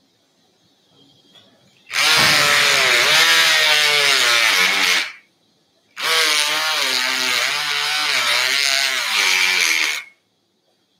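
Powered surgical bone saw cutting through a dog's tibia to finish a CBLO osteotomy, run in two bursts of about three and four seconds, its pitch wavering and dipping as it works through the bone.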